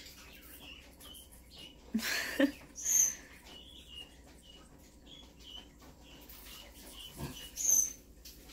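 Pet green-cheeked conure giving soft short chirps, with two sharper high squeaks about three seconds in and near the end.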